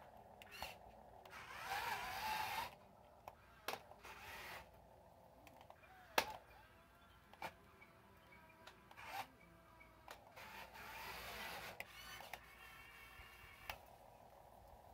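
Small electric drive motor and gears of a radio-controlled CAT wheel loader whining in two short runs, the first rising in pitch, with a few sharp clicks in between.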